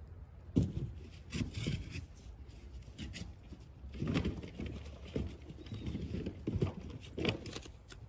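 Wood fire in a stone fire pit crackling, with irregular sharp pops.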